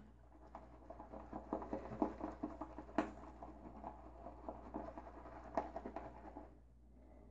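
Omega Pro 48 boar-bristle shaving brush whisking soap lather in a bowl: a faint, fast, soft crackling patter of bristles working the foam. It stops about six and a half seconds in. The patter comes as a little added water is worked into the lather.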